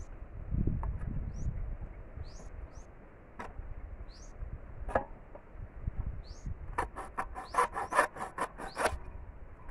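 Hacksaw cutting through a bamboo pole: a few separate strokes, then a quick run of about five strokes a second for the last couple of seconds. Small birds chirp in short rising calls throughout.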